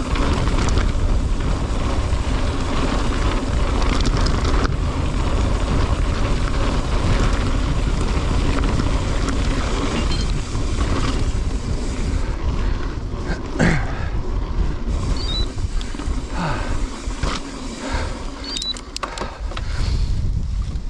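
Heavy wind buffeting an action camera's microphone while riding a mountain bike, a deep continuous rumble with a few brief swooshes in the second half.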